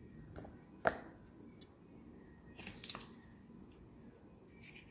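Hands handling a metal screwdriver case and a paper card: a sharp click about a second in, then a short papery rustle near three seconds, with faint scraping between.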